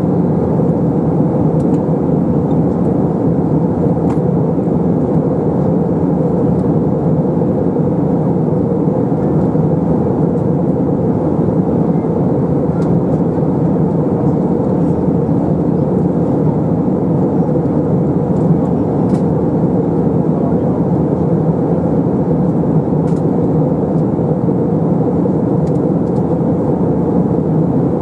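Steady cabin noise of an Airbus A321 in flight, heard from a window seat over the wing: engine and airflow noise, an even rumble mostly low to mid in pitch.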